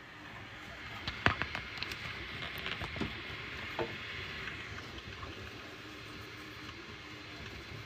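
Bambu Lab A1 Mini 3D printer running mid-print: a steady fan hiss with a faint, broken hum from the motors moving in the second half. Several sharp clicks and taps come in the first few seconds.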